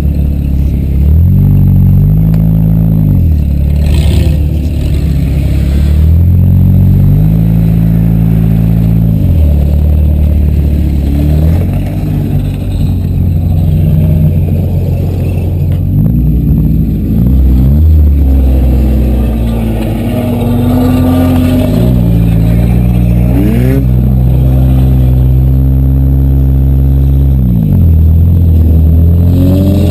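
Demolition derby car engine revving hard, its pitch climbing and dropping over and over as the throttle is opened and let off. There are a couple of sharp knocks, about four seconds in and again around sixteen seconds.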